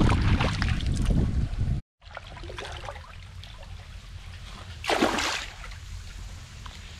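Water trickling and sloshing under heavy rumble on the microphone, cut off abruptly near two seconds in; then quieter water sounds with one brief louder rush about five seconds in.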